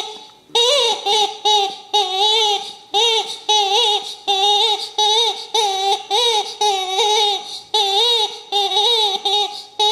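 Blue plush chicken dog toy squeaking over and over as a wire fox terrier chews on it, about two to three squeaks a second, each squeak bending in pitch.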